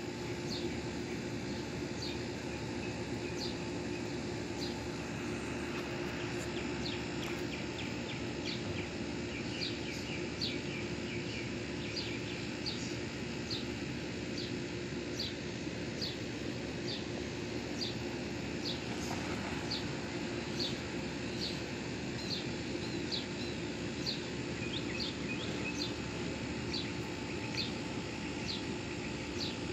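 A bird chirping over and over, short high chirps about once or twice a second, over steady outdoor background noise with a low hum.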